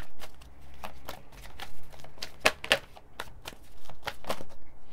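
A deck of oracle cards being shuffled by hand: irregular soft slaps and clicks of cards against cards, with two louder slaps about two and a half seconds in.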